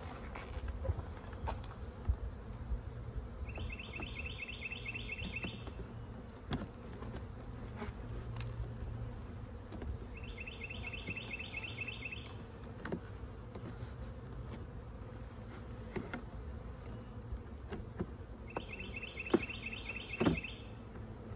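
Honey bees buzzing steadily around an open hive, with scattered light knocks from wooden frames being handled, the loudest two near the end. A bird sings a short trill of rapid notes three times, several seconds apart.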